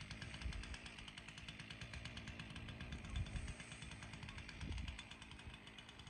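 A small petrol garden-machine engine running steadily and faintly, with a fast, even pulse, under occasional low rumbles.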